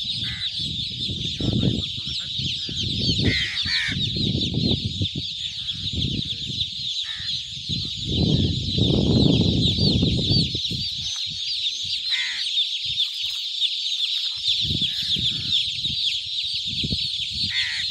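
A dense chorus of hundreds of newly hatched chicks peeping without a break, with low, irregular rumbles underneath.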